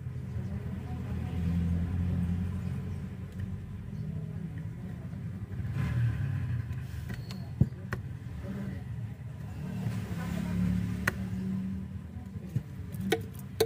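Low rumble that swells and fades a few times, with several sharp clicks from about halfway on as the plastic speaker housing is handled.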